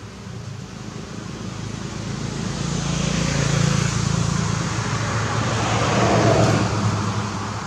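Road traffic passing, with a motorbike among it: engine hum and tyre noise build over the first few seconds, peak twice, about three and a half seconds in and again about six seconds in, then fade.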